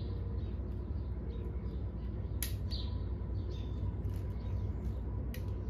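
Steady low hum, with small birds chirping a few times and a couple of sharp clicks of needle-nose pliers working a wrist pin retainer clip into the piston.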